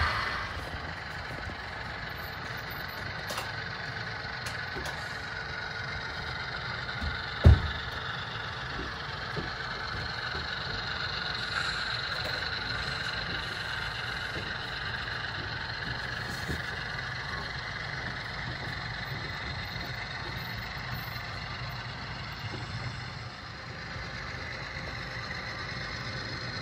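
HO-scale model freight cars rolling along the track: a steady rolling rumble with faint irregular clicks from the wheels. A single sharp thump sounds about seven seconds in.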